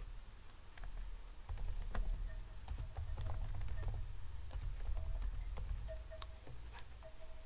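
Typing on a computer keyboard: a run of irregular key clicks, over a low steady hum.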